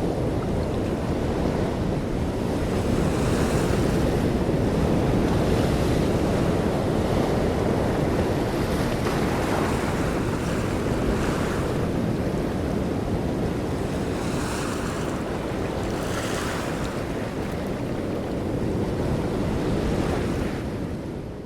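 Open-sea waves with wind buffeting the microphone: a steady rush of water, with louder splashing swishes every few seconds. It fades out near the end.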